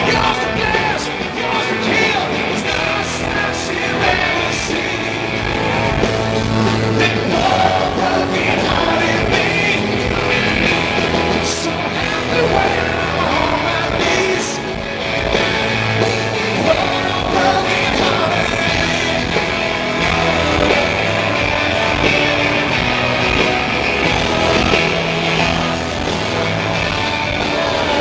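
Rock band playing live: electric guitar, drums and bass, with a lead vocal singing over them.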